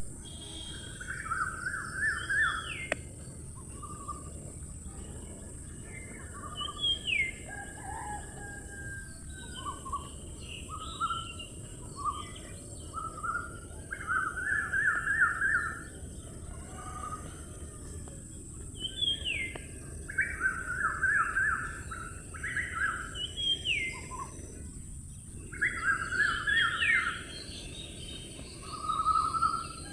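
Birds chirping: bursts of rapid chirps come every few seconds, some with quick rising notes, over a steady high-pitched hiss.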